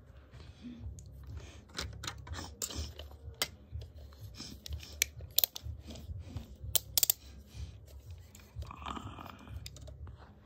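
Hard plastic LEGO pieces and toy figures clicking and knocking as they are handled and moved, with irregular sharp clicks throughout.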